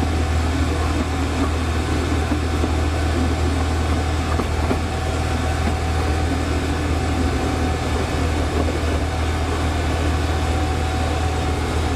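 Miniature railway train running, with a steady low engine drone that does not change.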